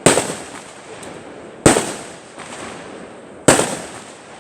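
Three loud fireworks bangs, a little under two seconds apart, each trailing off in an echo.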